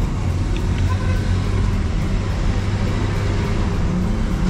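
Steady low vehicle engine hum with road traffic noise, heard from inside a truck cab.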